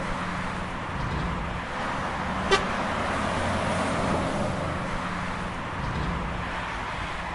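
Steady traffic and road noise, with one very short high-pitched toot, like a quick horn tap, about two and a half seconds in.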